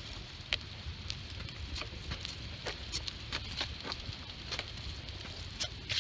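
Modified Harbor Freight panel wagon being pulled along pavement on its pneumatic tyres: a low rolling rumble with irregular light clicks and crackles, the loudest near the end.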